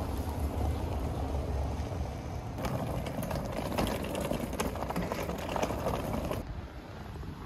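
A low steady rumble, then from about two and a half seconds in a dense patter of rain drops hitting an umbrella, which cuts off suddenly about a second before the end.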